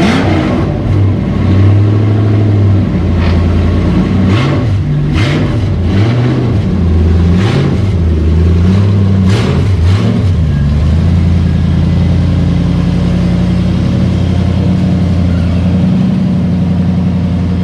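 Engine of a matte-black Lexus SC drift car revved in repeated quick blips, with a few sharp cracks among the revs, then settling to a steady idle about eleven seconds in. Its loud exhaust has an aggressive sound.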